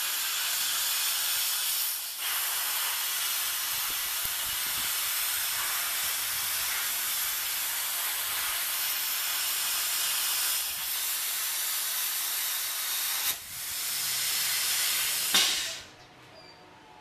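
CNC plasma cutter torch cutting through steel plate: a steady, loud hiss of the plasma arc and air jet, dipping briefly twice and cutting off suddenly near the end.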